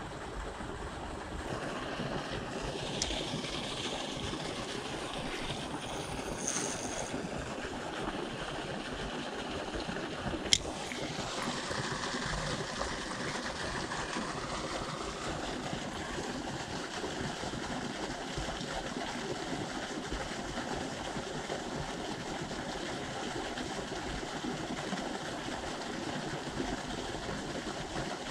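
Steady rush of river water. One sharp click sounds about ten seconds in.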